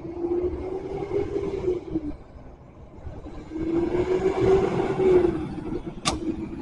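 Vehicle engine noise at a gas station while a fuel pump dispenses, swelling twice with a steady hum that drops in pitch as each swell fades, like cars driving past. A single sharp click comes near the end.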